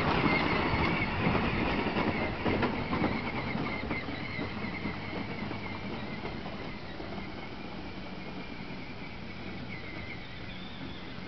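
John Deere Gator battery-powered ride-on toy driving over grass: its electric drive whirring and its plastic wheels rolling, fading steadily as it moves away.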